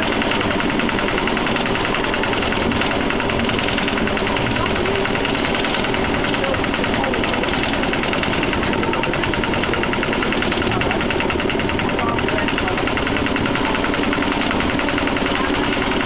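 Lister 4wDM autotruck's small diesel engine running steadily under way, with a rapid, even chugging.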